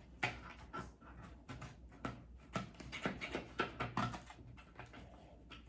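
Scissors snipping through thick, stiff paper: about a dozen short, crunchy cuts in quick succession, stopping about four seconds in. The paper is hard to cut.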